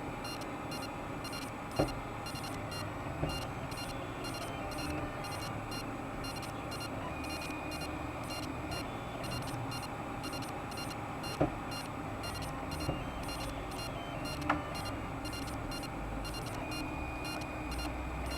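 Mendel-type 3D printer running a print: its stepper motors whine at pitches that shift every second or so as the axes move, over a steady hiss, with a few sharp clicks.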